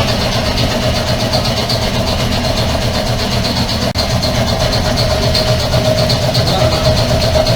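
Air compressor running steadily, a constant mechanical rumble with a steady droning tone.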